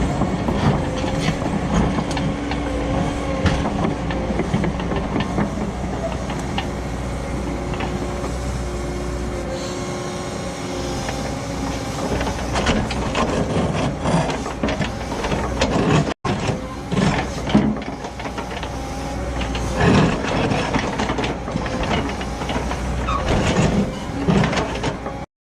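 Cat 314E excavator's diesel engine working under load, with irregular scraping, cracking and knocking as its ripper tooth tears through hard blue stone rock.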